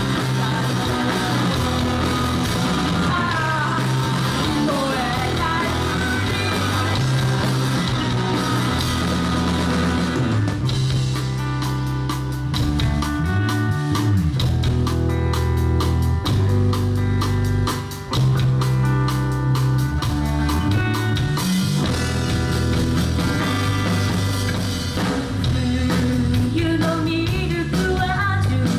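Live rock band playing: a singer over electric guitar, bass and drum kit. About ten seconds in the singing stops and the band plays an instrumental passage of held chords over busy drumming; the singing comes back near the end.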